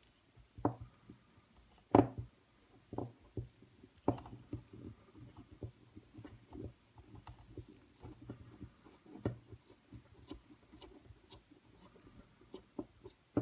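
Small screwdriver clicking and scraping in the pivot screw of a Brous Blades Exo folding knife while it is being loosened, with light handling noise from the knife and hands. Irregular faint clicks, a few louder ones standing out.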